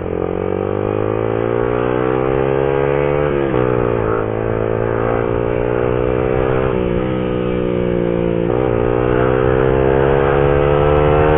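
Motorcycle engine accelerating: the revs climb steadily, dip briefly three times as the gears change, about three and a half, seven and eight and a half seconds in, and climb again after each change.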